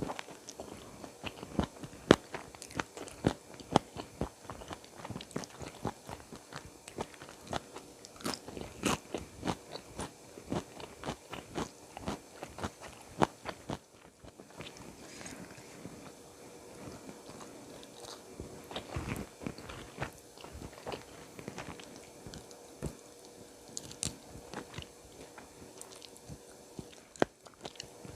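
Close-miked eating of spicy chicken feet and raw vegetables: wet biting, crunching and chewing with many sharp clicks, thick at first, easing off after a short pause about halfway.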